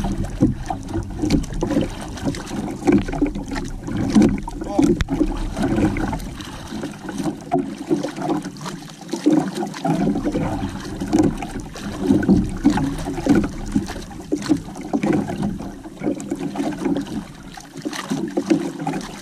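Sea water lapping and slapping against the hull and outrigger of a small canoe in uneven, choppy pulses, with wind buffeting the microphone.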